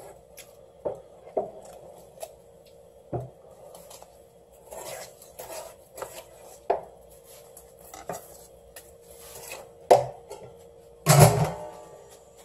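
Kitchen knife working a spotted sea bass fillet on a wooden cutting board while skinning it: scattered knocks and short scrapes of the blade against the board, with a louder clatter near the end.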